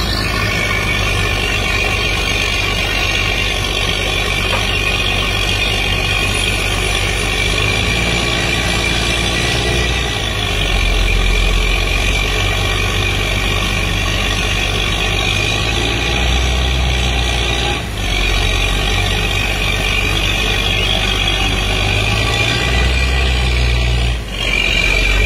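Diesel engine of a truck-mounted water well drilling rig running steadily under a high whine. Its low hum steps up and down a few times, with two brief dips in level near the middle and near the end.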